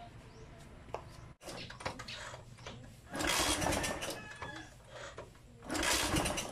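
Yamaha SZR150's electric starter cranking the engine in two short bursts, each about a second long, the second a couple of seconds after the first.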